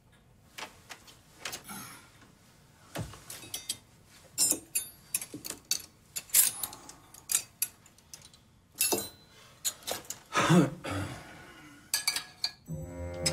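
China plates, cutlery and glasses clinking and knocking as they are moved about and set down on a laid dinner table, in irregular clatters, some with a short ringing note. Low bowed-string music comes in near the end.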